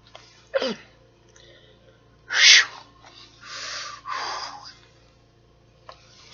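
A woman's breath-and-voice reaction to ghost pepper heat in her throat: a short falling vocal sound, then a sharp, loud burst of breath like a sneeze about two and a half seconds in, followed by two long, heavy breaths out.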